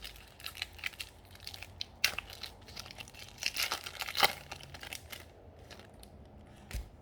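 Plastic-foil trading-card pack wrapper crinkling as it is handled and torn open, with a run of sharp crackles, loudest about two seconds in and around four seconds in.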